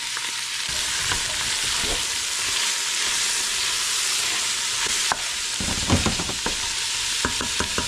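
Chopped carrots, celery, onion and garlic sizzling in olive oil in a stainless steel stockpot as they sauté, stirred with a wooden spoon. The spoon scrapes and knocks against the pot about two-thirds of the way in, then gives a quick run of light taps near the end.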